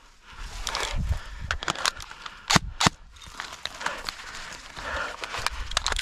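Footsteps and gear rustling through brush, with scattered small crackles and two sharp cracks about a third of a second apart, roughly two and a half seconds in.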